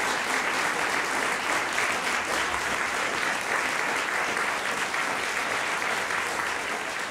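Audience applauding steadily, dense even clapping that eases off slightly near the end.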